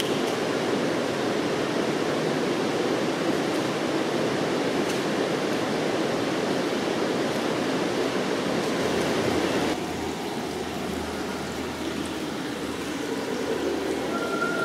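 Steady rush of flowing water in a long concrete stair tunnel. About ten seconds in it becomes a little quieter and duller, and a low steady hum comes in underneath.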